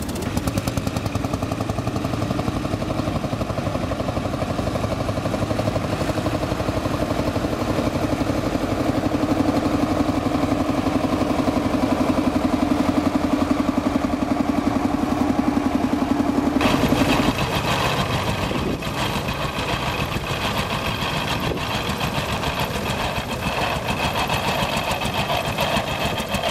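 A vintage engine running steadily with a fast, even beat. About 17 seconds in the sound changes abruptly to a brighter, busier clatter.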